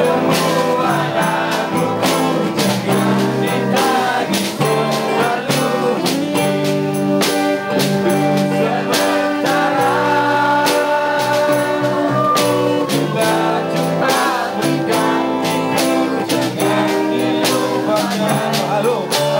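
A live acoustic band performance: a strummed acoustic guitar keeping a steady rhythm under a lead voice singing a Malay-language song.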